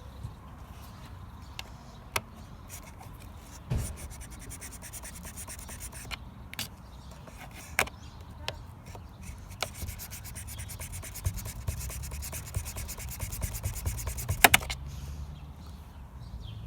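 Plastic triangle pieces on a BMW X3 E83 sunroof mechanism being cut off by hand: two long stretches of fast, even rasping, with several sharp clicks and knocks in between.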